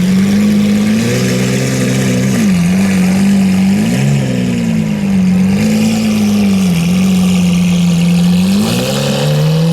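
Lamborghini Aventador LP 700-4's 6.5-litre V12 engine idling, with light throttle blips that briefly raise its pitch about a second in, around four seconds in and again near the end.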